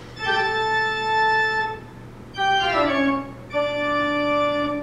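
Three long, loud organ-like notes, the second sliding down in pitch and the last held lower, giving a falling, deflating tune.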